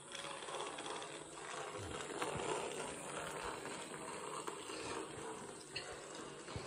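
Battery-powered TrackMaster toy engine running along plastic track, its small electric motor and gears whirring steadily, with an occasional click.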